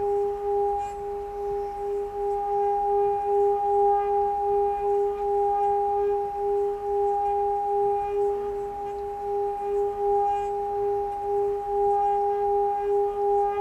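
Singing bowl sounding a long, steady, sustained tone with a slow wavering pulse. It holds a low note and a higher overtone about an octave above it.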